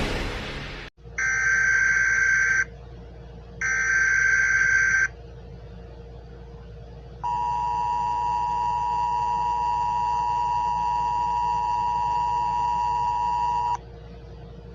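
Emergency Alert System tones: two short bursts of SAME header data tones, then the EAS attention signal, a steady two-note tone held for about six seconds that cuts off abruptly. A faint steady hum lies underneath.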